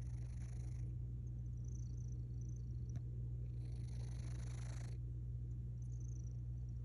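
Sleeping cat snoring: a low, steady rumble with a breathy rasp twice, about three and a half seconds apart.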